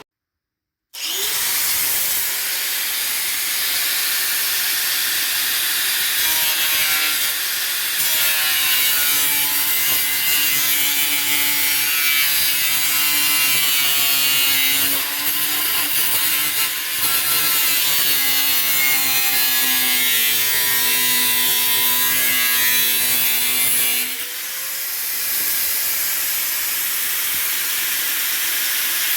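Angle grinder cutting off the excess fan flange along the marked line, its motor whine sagging and wavering as the blade bites. Near the end it briefly eases off and speeds back up before cutting again.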